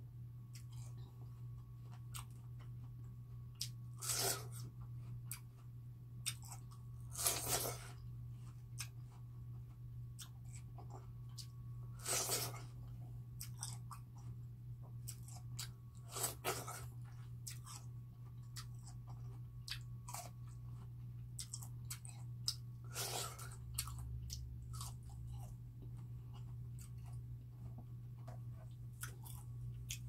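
Biting and chewing watermelon slices close to the microphone: wet, crisp crunches, with about five louder bites spread through and many small chewing clicks between them.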